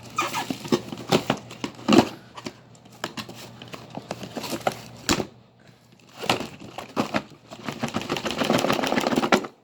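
Hands working at a boxed artillery-shell firework kit, trying to get it open: irregular clicks and knocks of cardboard and plastic packaging, with a longer scraping rustle near the end.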